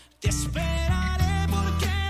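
Live band playing a Latin pop song: the music drops out to near silence for an instant, then comes back in at full level about a quarter second in, with a steady bass and a wavering melody line.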